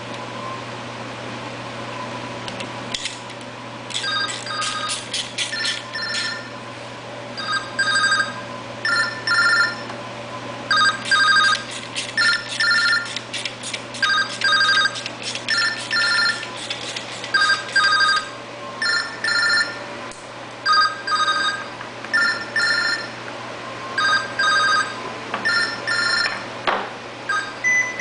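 Telephone ringing with an electronic ringtone: short trilling rings repeating in pairs from about four seconds in, over a steady low hum.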